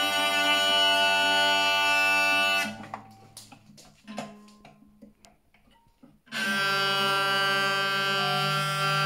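Hurdy-gurdy of maple and linden wood, its cranked wheel sounding a held note over steady drones. The wheel stops a little under a third of the way in, leaving a few seconds of quiet with scattered clicks and knocks from handling the instrument. Then the drones start again and hold steady.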